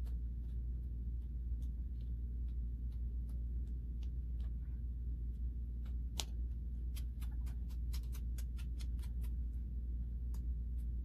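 Scattered light clicks and taps, with a quick run of about a dozen in under three seconds about seven seconds in, over a steady low hum.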